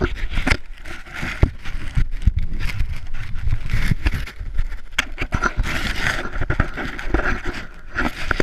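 Handling noise from a GoPro action camera being picked up and moved about in the hand: irregular knocks, scrapes and rubbing against its case.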